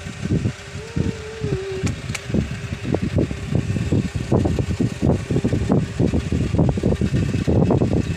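Handling noise: irregular rumbling, rubbing and bumping on a phone's microphone as hands, a kitten and a dog's fur brush against it. A short, faint wavering whine comes about a second in.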